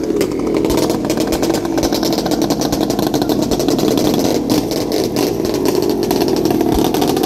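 Single-cylinder racing long-tail boat engine running hard and steady, driving the long propeller shaft as the boat planes across the water.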